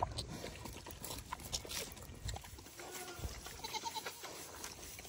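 Pot-bellied pigs munching lettuce, with scattered soft crunches, and a faint goat bleat about three seconds in.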